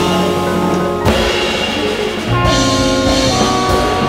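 Large jazz ensemble playing live: saxophones, trumpet and trombone holding sustained chords that change every second or so, over drum kit and cymbals with piano and bass.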